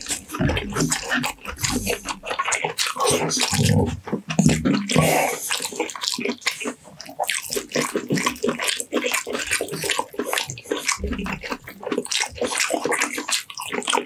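Close-miked wet chewing and lip-smacking, a dense run of quick moist clicks as roast chicken and lamb are eaten with the hands. Partway through comes the wet tearing of the roast chicken being pulled apart by hand.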